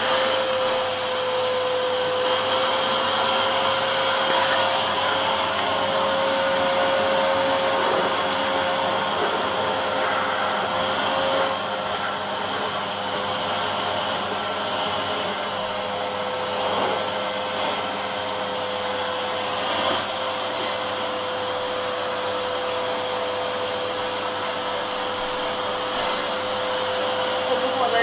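Vacuum cleaner running steadily with a constant whine, its metal wand's nozzle sucking at a cat's fur and paws.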